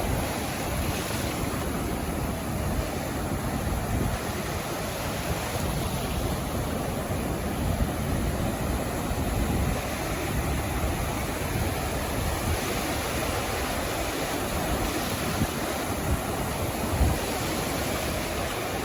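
Sea waves breaking and washing up on a sandy shore in a steady, continuous surf, with some wind buffeting the microphone.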